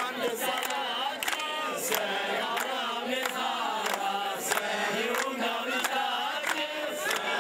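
A crowd of people singing together and clapping in time, about three claps every two seconds.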